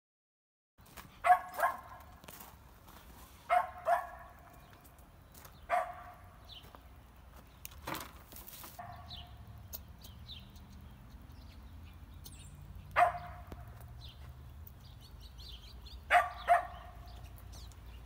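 A dog barking outdoors in short barks, mostly in quick pairs, about eight in all, with small birds chirping faintly and a low steady outdoor rumble behind. A single sharp knock sounds about eight seconds in.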